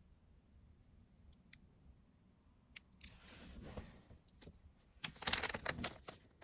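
A plastic minifigure blind bag being handled and opened: a few faint ticks, a soft rustle, then from about five seconds in a dense run of crinkling and clicking.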